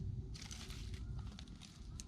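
Dry rustling and crunching in short bursts, with scattered sharp clicks, over a steady low rumble.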